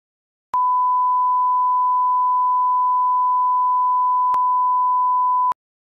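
Steady 1 kHz reference test tone of the kind played with colour bars, one unwavering pitch lasting about five seconds. It starts abruptly about half a second in, has a faint click about four seconds in, and cuts off sharply near the end.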